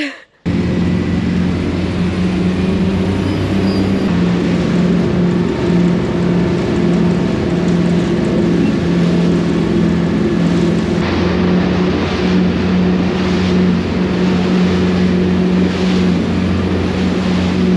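Inboard Detroit Diesel engines of a motor cruiser running at speed, a steady low drone, over the rush of water and spray along the hull. Bursts of spray splash more often in the second half.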